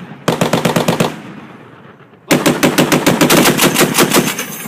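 M2 .50-calibre heavy machine gun firing in bursts: a short burst of about eight rounds, a fading echo, then a longer burst of about two seconds. The bursts are traded in the 'talking gun' method of sustained fire.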